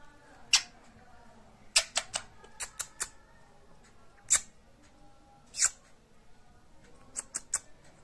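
Indian ringneck parakeet making short, sharp high-pitched squeaks and clicks: single ones about half a second in and around the middle, quick clusters of several near two to three seconds in and again near the end.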